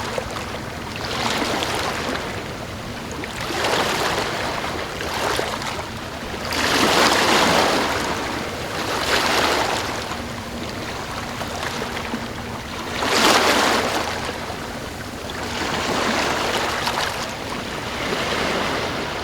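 Small, calm waves washing up on a sandy beach, one surge after another every few seconds, the strongest about seven and thirteen seconds in.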